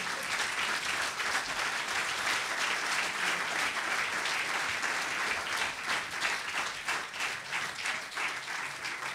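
An audience of many people applauding, a steady round of clapping that becomes sparser near the end.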